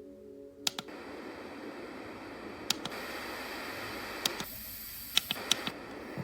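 Sound machine switching from a ringing tone to a steady white-noise hiss as its buttons click. A brighter, higher hiss plays for about a second around four and a half seconds in, amid a quick run of clicks.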